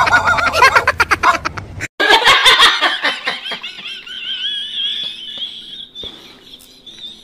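High-pitched, wavering laughter that rises in pitch and slowly fades. It follows a burst of choppy sound that cuts off abruptly about two seconds in.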